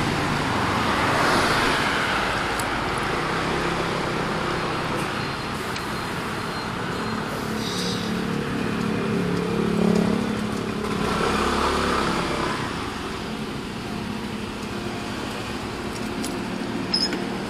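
Traffic noise heard from a moving motorcycle: the bike's engine running under road and wind noise, with city traffic around it. It swells briefly about ten seconds in.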